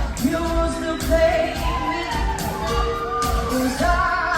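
A young female singer singing a slow pop ballad with a live band, held notes over a steady bass-drum beat about twice a second.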